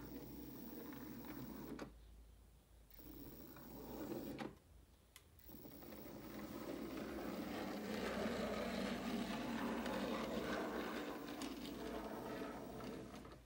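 Model railway tank locomotive running along the track, its small electric motor and wheels whirring. The whirr drops away twice in the first five seconds, then runs louder and steady until near the end.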